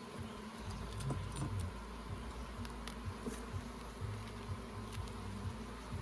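Honey bees buzzing around an open hive, a steady low hum that flickers as individual bees fly close, with a few light clicks.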